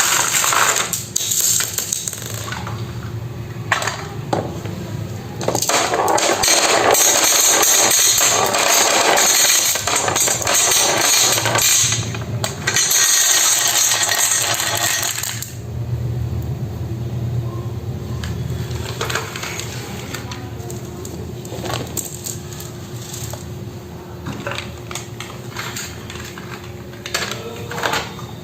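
Marbles rolling and clattering down a toy marble-run slope: a dense, continuous rattle of clicks for roughly the first half, thinning to scattered clicks and knocks after that.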